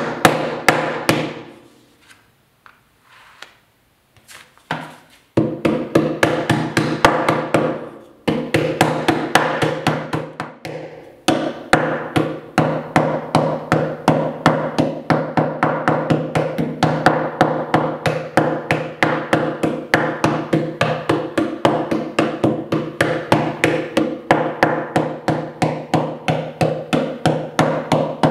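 Wooden clay mallet repeatedly beating a clay slab flat on a work table, about three to four blows a second, each with a short woody ring. The blows stop for a few seconds near the start, with brief breaks later, then go on steadily.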